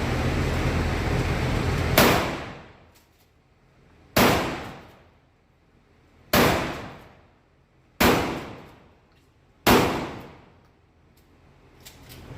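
Five shots from a 12 gauge shotgun, fired at a steady pace about two seconds apart, each a sharp blast that fades over about a second.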